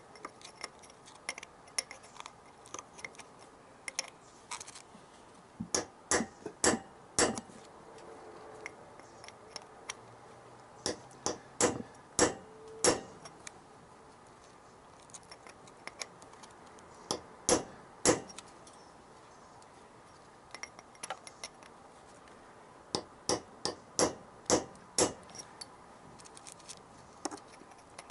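Hammer striking a chisel set against the head of a seized, stripped Allen bolt on a Yamaha XJ900S carburettor intake flange, to shock it loose. Sharp metallic blows come in short bursts of two to six, with pauses of a few seconds between.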